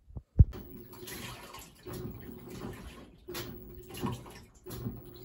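Front-loading drum washing machine running, with water rushing and splashing in the drum in surges about every second and a half. There is a sharp thump near the start.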